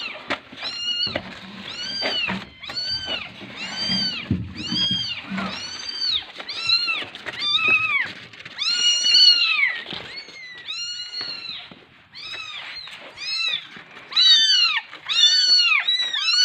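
A very young kitten, abandoned while still crawling, crying over and over in high, thin mews, about one and a half a second, with a short break about ten seconds in. Low knocks and handling noise sound under the first few cries.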